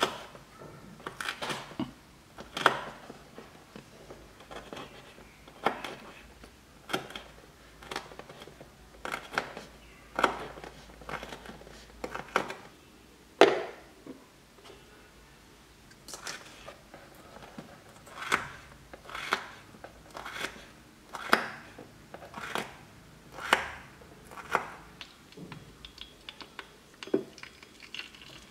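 Tiny knife cutting a chili pepper on a miniature wooden cutting board: sharp, irregular taps and short slicing sounds, about one or two a second.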